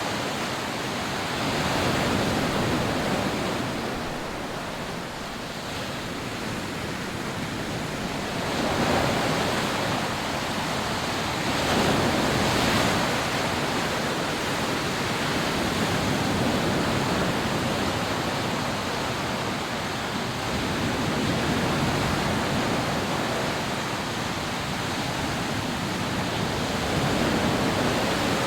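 Rough sea waves breaking and washing up on a sandy beach: a continuous rush of surf that swells and eases every few seconds as each wave comes in.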